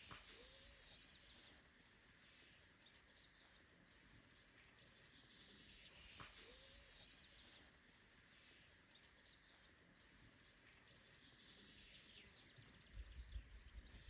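Near silence, with faint birds chirping every few seconds in the background and a low rumble near the end.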